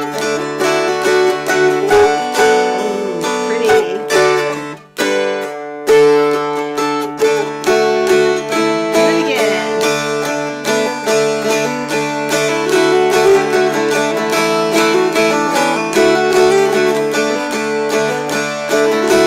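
Two mountain dulcimers strummed together, a quick melody played over steady drone strings. The sound cuts out for about a second roughly five seconds in, then the playing carries on.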